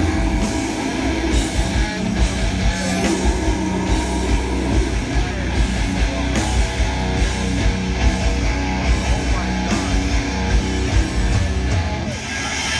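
A hardcore band playing live and loud, with heavy distorted guitars and drums hitting in a steady rhythm.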